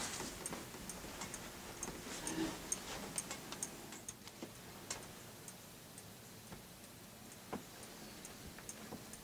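Faint, irregular small clicks and ticks over a quiet hiss: handling noise as the camera on its small tripod is shifted and re-aimed inside the hunting blind.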